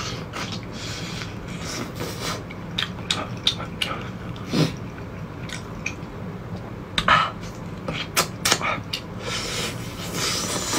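Spicy crayfish tails being eaten by hand: the shells crackle as they are peeled, with close-miked chewing and mouth clicks. A string of short, sharp crackles, the loudest about seven and eight and a half seconds in.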